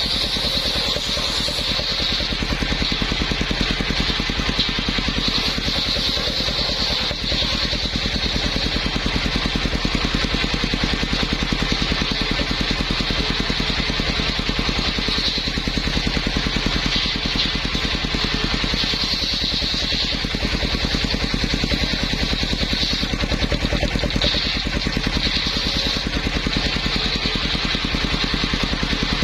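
Engine driving a circular sawmill, running steadily with a fast, even beat, and a high whine from the saw that swells at times, as when the blade bites into timber.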